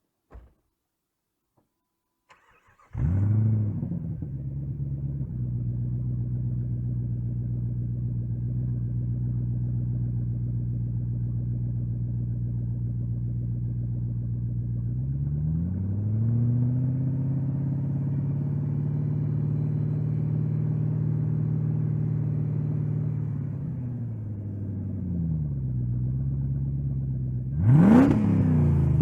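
2004 Jeep Grand Cherokee's 4.7 HO V8 on a custom Magnaflow muffler exhaust, warm-started: after a click it cranks briefly and catches about three seconds in, then settles to a steady idle. Past the middle it is held at a raised engine speed for several seconds, drops back to idle, and is blipped in two sharp revs near the end.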